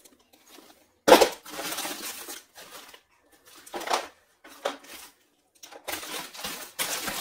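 Broken pieces of baked edible clay being handled: a sharp clack about a second in, the loudest sound, followed by crackling and rustling, with more short knocks about four and five seconds in.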